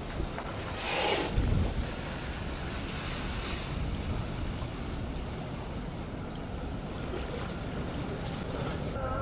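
Flooded river water rushing and lapping against a half-sunken wooden boat hull, with wind rumbling on the microphone. There is a louder rush about a second in.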